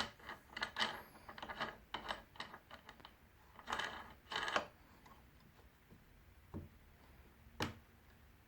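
Light, irregular clicks and knocks of parts of a homemade wood lathe being handled, in a quick cluster over the first few seconds and then two separate knocks near the end. The lathe's motor is not running.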